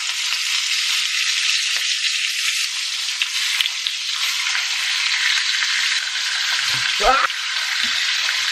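Bone-in, skin-on chicken thighs sizzling steadily in hot butter in a frying pan as they are laid in skin side down, one after another, to sear.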